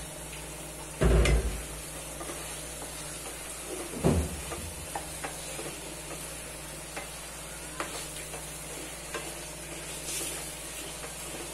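Chicken pieces and onions frying with a faint sizzle in a nonstick pan, in the water the chicken has let out, while a spatula stirs and scrapes them with many small taps. A louder clatter comes about a second in and a knock at about four seconds.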